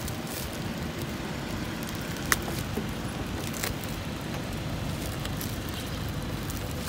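Plastic wrap and paper packaging crinkling and tearing as they are pulled open by hand, over a steady low background rumble, with one sharp click a little over two seconds in.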